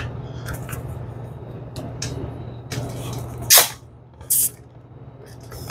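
Small clicks of plastic and brass fittings being worked, then a loud, short hiss of CO2 gas about three and a half seconds in and a second, shorter hiss under a second later, as CO2 lines are pushed onto Flojet pump fittings. A steady low hum runs underneath.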